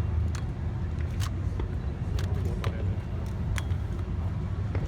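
A steady low rumble with a few sharp, separate cracks scattered through it, like fireworks crackling.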